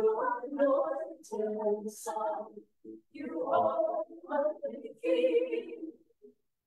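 Small mixed church choir singing a cappella in short phrases, with brief pauses between them a little under three seconds in and again near the end.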